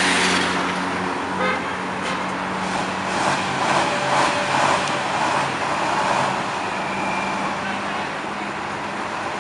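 Street traffic with heavy vehicle engines running steadily, a low engine hum under general road noise.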